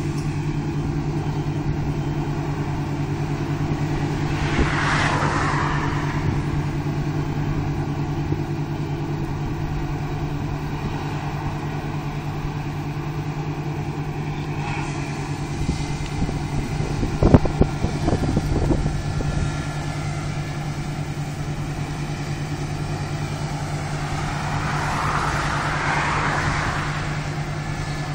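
Claas Lexion 670 combine harvester running steadily at work, a constant engine and machinery drone. Two swells of hiss come about five seconds in and near the end, and a short cluster of knocks comes about seventeen seconds in.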